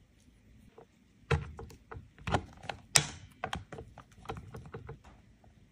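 Hard plastic and metal clicks and knocks of a kids' bike's snap-on pedal being handled at its push-button crank mount: a quick run of sharp taps starting about a second in, the loudest about three seconds in with a brief scrape.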